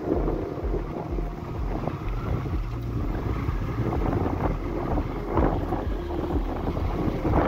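Wind buffeting the microphone over the steady low drone of a motorcycle engine cruising along a gravel road, with a few brief louder knocks.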